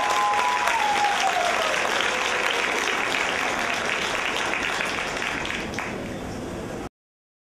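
Audience applauding, slowly fading and cutting off abruptly near the end. In the first two seconds a faint tone slides downward in pitch.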